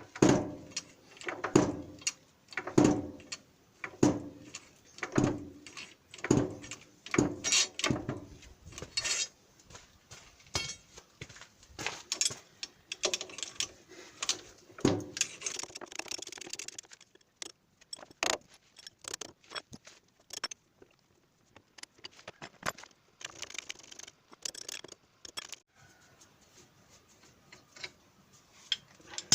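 Metal-on-metal strikes on the wheel parts of a walking tractor, about one blow a second for the first eight or nine seconds, then scattered lighter clinks of tools against steel. This is work to free a stuck wheel part so a leaking oil seal can be replaced.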